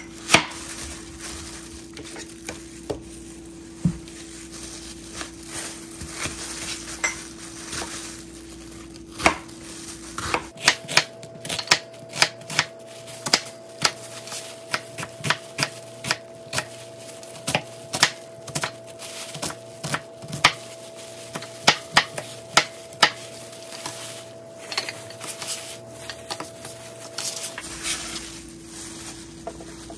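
Kitchen knife chopping an onion on a plastic cutting board: a few scattered cuts at first, then from about ten seconds in a long run of quick knife strikes on the board as the onion is diced.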